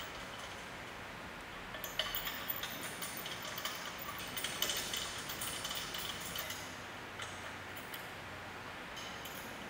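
Metal bolts and an L-shaped hex key clinking and clicking against the table top as the bolts are dropped into their holes and turned. The clinks start about two seconds in, come thick and fast for several seconds, then thin out to a few single clicks, over a steady hiss.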